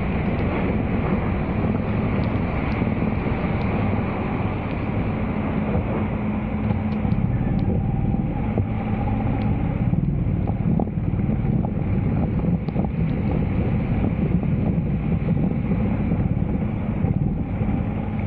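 Steady rumble of wind buffeting the microphone and rain falling on floodwater, with a low steady hum running underneath and scattered small ticks.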